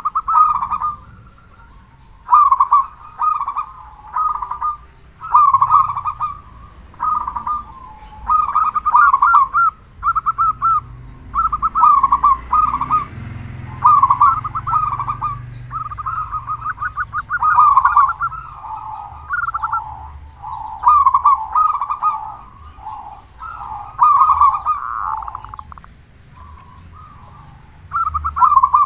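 Zebra dove cooing over and over in short phrases of rapid, stuttering coo notes at a steady pitch, each separated by a brief pause.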